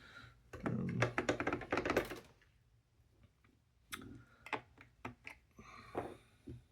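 Rapid clicking and rattling of a puzzle box's mechanism being worked with a tool for about a second and a half, then a few separate clicks and taps, as a stuck part is forced.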